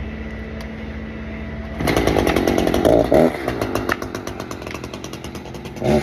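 Echo CS-590 two-stroke chainsaw running, then revved up hard about two seconds in and held at high revs, easing off slightly toward the end.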